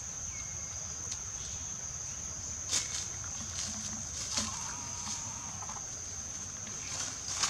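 Steady high-pitched drone of insects, with a few sharp clicks: about three seconds in, just past the middle, and near the end.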